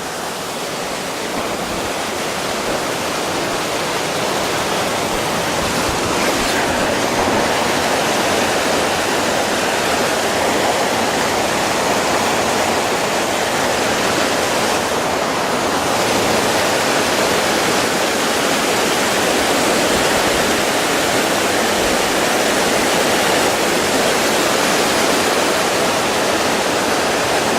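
Creek water rushing through and over rocks in a small cascade, a loud, steady rush that swells a little over the first few seconds.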